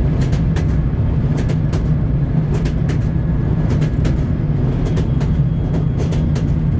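Train wheels clacking over rail joints in quick pairs, about once a second, over a steady low rumble of the rolling carriage.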